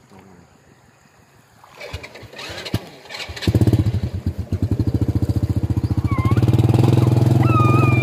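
Small Honda motorcycle engine starting about halfway through with a sudden catch, then running with a rapid steady beat that grows louder.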